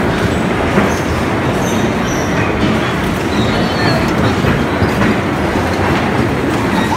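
Bumper cars running: a loud, steady rumble of the cars' wheels and electric drive rolling over the metal floor, with a few faint high squeaks.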